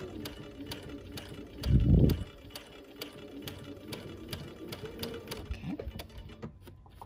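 Domestic sewing machine stitching a quilt seam slowly, its needle mechanism clicking about three times a second. A dull low thump about two seconds in is louder than the stitching.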